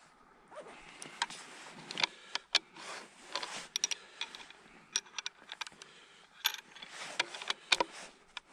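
Skis sliding over crusted snow in slow, careful strides, a swish with each step, with many scattered sharp clicks and ticks.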